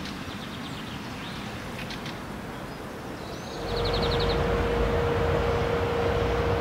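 Birds chirping over a quiet outdoor background. About halfway through, a steady low rumble with a constant hum sets in as an ЭП2Д DC electric multiple unit approaches along the line, and a bird trills over it.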